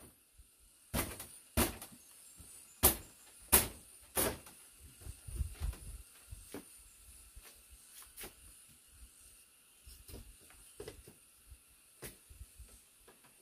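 A series of sharp knocks: five loud ones in the first four seconds or so, about two-thirds of a second apart, then fainter, irregular taps, over a steady high hiss.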